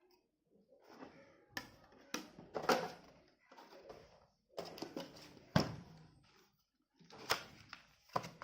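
Box contents being handled: irregular sharp clicks and taps of hard plastic and cardboard, with softer rustling between them.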